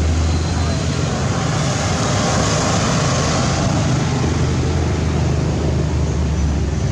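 Steady motor-vehicle engine rumble with traffic noise: a constant low hum under an even wash of road sound, swelling slightly in the middle.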